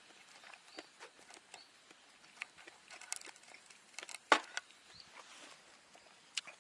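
Close-up eating sounds: chewing with small scattered clicks and taps of utensils, one sharper tap about four seconds in.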